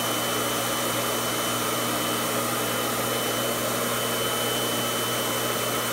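Gas ribbon burner running with a steady hiss of flame and air while a glass tube is heated in it for bending.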